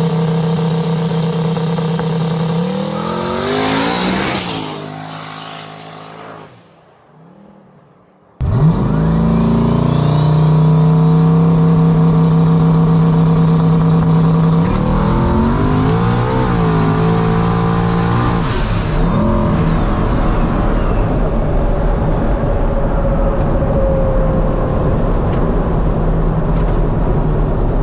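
Turbocharged 5.3 LS V8 in a Fox body car: the engine runs steadily and briefly revs, then fades out for a moment. It cuts back in loud, running hard with a whistle climbing in pitch as the turbo spools. About twenty seconds in the engine tones give way to a steady rush of road and wind noise.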